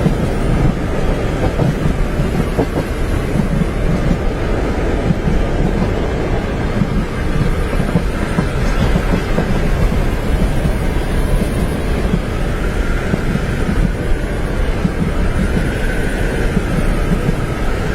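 Train running along its tracks, heard from inside a railway carriage: a steady low rumble with the wheels clacking over the rails.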